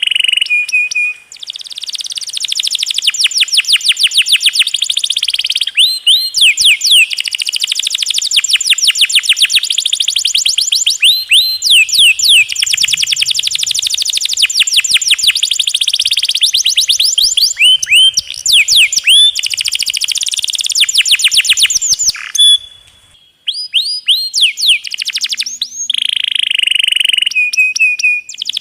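Domestic canary singing long rolls: very fast trills of rapidly repeated high notes and buzzy held phrases. There is a short break about a second in and a brief pause about four-fifths of the way through.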